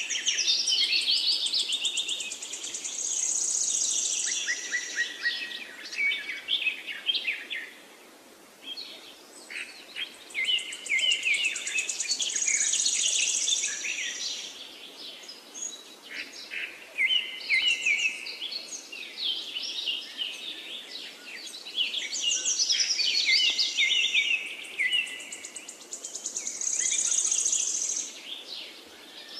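Small birds chirping and twittering, many quick overlapping calls in a busy chorus.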